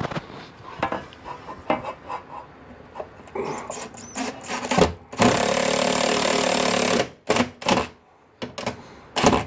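Cordless drill-driver with a nut-driver bit runs steadily for about two seconds, starting about five seconds in, driving a screw through a fan's wall-mount bracket. It follows with a few short trigger pulls near the end to seat the screw. Light handling knocks come before the run.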